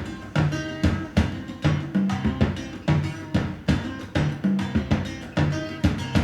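Instrumental rock music with drum kit, guitar and a repeating bass line, on a steady beat of about two drum hits a second, played through Wharfedale Diamond 9.1 bookshelf speakers.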